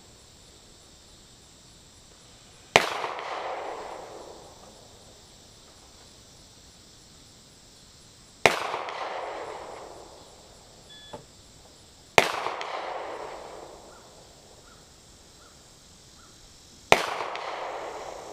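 Four handgun shots spaced several seconds apart, each a sharp crack followed by an echo that fades over about a second and a half.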